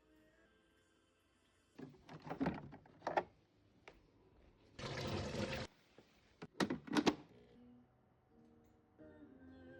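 Kitchen handling sounds: a few knocks and clatters, then about a second of rushing noise like running water in the middle, then more sharp clicks and clatters, over faint soft background music.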